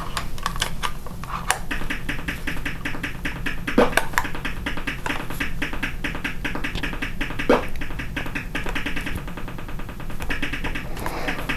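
TRS-80 Color Computer game sound effects: a rapid, even run of short electronic ticks, with a few single sharper blips scattered through.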